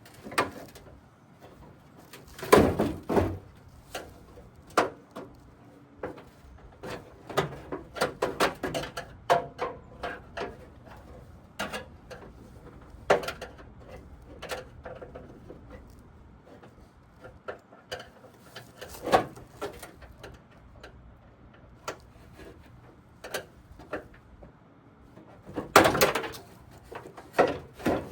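Irregular knocks, clanks and rattles of hands and tools working on truck body parts, loudest about two and a half seconds in and again near the end.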